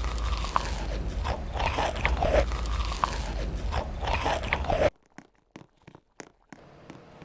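Close-up chewing and crunching of food, with a low rumble beneath it. It cuts off abruptly about five seconds in, leaving a few faint clicks.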